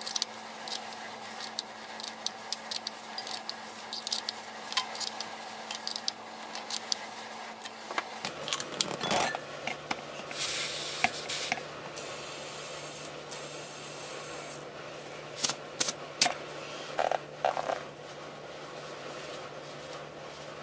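Small clicks and taps of hands working at a motorcycle wheel's tyre valve, then air hissing through an inflator chuck into the tyre for a few seconds, followed by a few sharp clicks as the chuck comes off.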